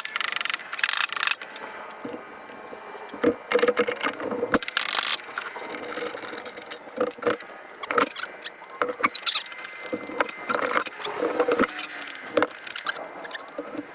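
Hand tools and loose metal engine parts clinking and scraping in short, irregular knocks as the top end of a Honda Foreman 400 ATV engine is taken apart.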